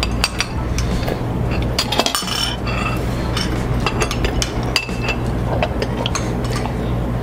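Spoons and cutlery clinking against soup bowls and dishes while eating, many short irregular clinks over a steady low hum.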